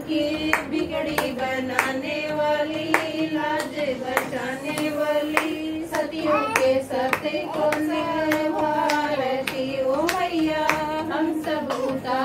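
Women singing a Hindi devotional hymn to Goddess Durga in one sustained, slowly gliding melody, with steady hand claps keeping the beat.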